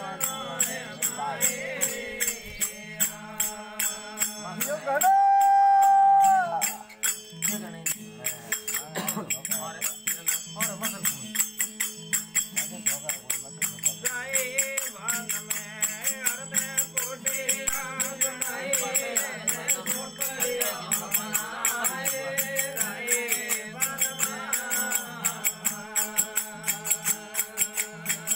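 Rajasthani devotional bhajan: a man singing over a harmonium and tambura, with a steady clicking beat of hand percussion. About five seconds in, a loud held note lasts a second and a half.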